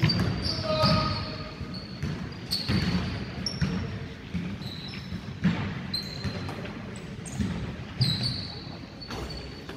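Basketball game on a hardwood gym floor: a ball bouncing and running footfalls, with sneakers giving many short, high squeaks.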